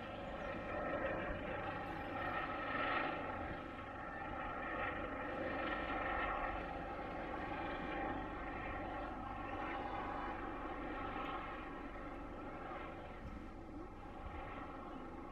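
Eurocopter EC145 T2 twin-turbine helicopter flying overhead: a steady rotor and engine sound carrying a whine of several steady tones over a low rumble, swelling and easing slightly as it passes.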